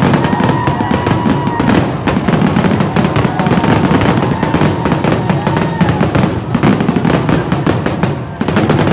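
Fireworks grand-finale barrage: many shells bursting in rapid, overlapping succession with dense crackling and booming.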